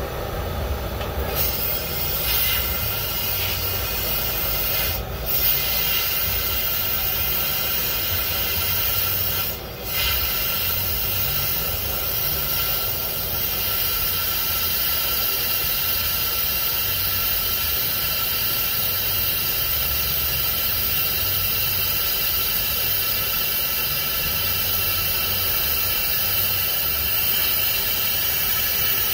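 Gas torch burning with a steady roar, its flame aimed into a two-stroke expansion-chamber exhaust to burn out carbon buildup. The sound drops out briefly twice, about five and ten seconds in.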